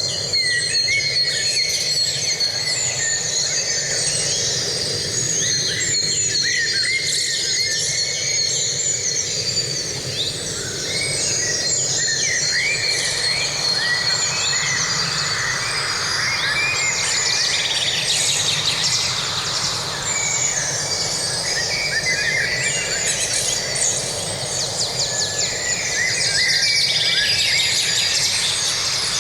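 Many songbirds chirping, trilling and calling over one another in a forest chorus, over a steady low rushing background.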